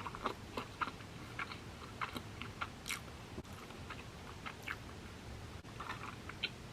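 Someone chewing sushi close to the microphone: soft, scattered mouth clicks and smacks at an irregular pace.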